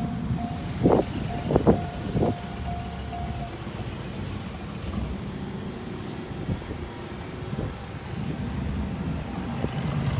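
Japanese railway level-crossing alarm dinging in a steady repeating beat, which stops about three and a half seconds in as the train clears, over the low running of a diesel railcar moving away. Three sharp knocks come between about one and two and a half seconds in, and motorbike engines rise near the end as traffic crosses.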